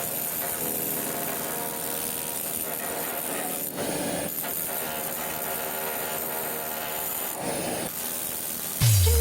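Steady running of a machine or power tool: a hum with held tones and a hiss over it, dipping briefly twice. Electronic music with a deep sliding bass comes in at the very end.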